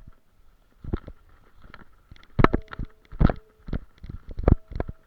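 Irregular knocks and thumps, about a dozen, the loudest bunched in the middle; a few are followed by a short ringing tone.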